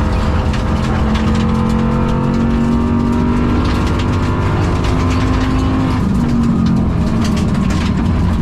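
Rally car engine heard from inside the cabin, running hard on the stage with a bad misfire that leaves it down on power. Its pitch climbs slowly, then drops about six seconds in. Frequent sharp clicks and knocks from the road surface run under it.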